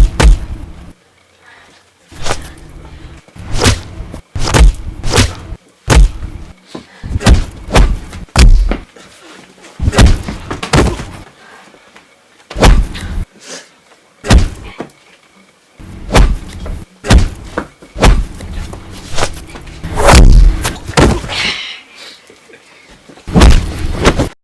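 A run of punch sound effects: heavy, sharp hits, some single and some in quick flurries of several blows, with short pauses between them.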